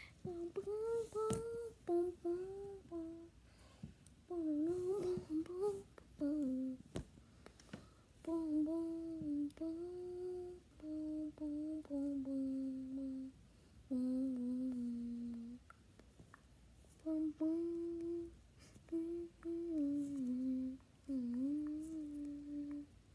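A child humming a wordless tune in held notes, phrase after phrase with short breaks, as the song for a toy figure's singing-and-dancing act.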